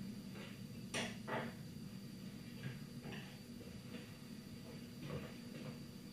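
Light clinks and knocks of metal parts being handled, two sharper ones about a second in and a few fainter ones later, over a steady low hum.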